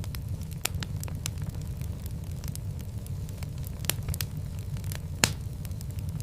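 Fireplace fire crackling: scattered sharp pops and snaps over a steady low rumble of the flames. The loudest pop comes about five seconds in.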